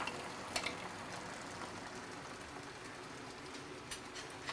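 Mussels cooking in an open pan of oil and white wine, a steady soft bubbling sizzle as their liquid comes out, with two light clicks, about half a second in and near the end.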